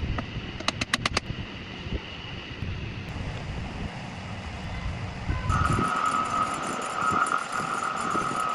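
Repaired table fan running, its airflow rumbling on the microphone, with a quick run of about five clicks about a second in. After about five and a half seconds the rumble drops and a steady high whine takes over.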